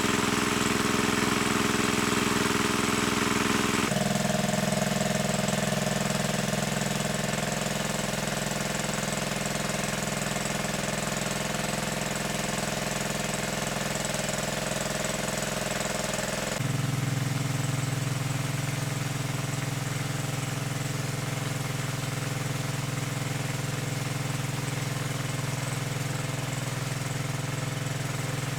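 Small engine running steadily, its pitch stepping abruptly lower about four seconds in and again around the middle.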